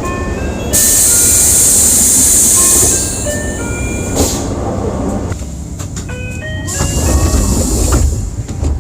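Door chime of a 2006 Mitsubishi Fuso Aero Midi MK city bus: a short run of electronic tones stepping in pitch, repeated several times. Loud bursts of air hiss come from the pneumatic doors, about a second in and again near the end, over the low rumble of the idling diesel engine.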